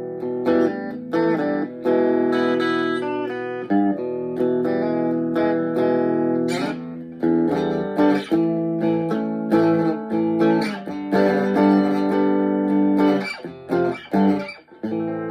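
Chapman ML1 Strat-style electric guitar played through a Blackstar HT1-R amp on a fairly clean tone, a mix of strummed chords and picked notes left to ring.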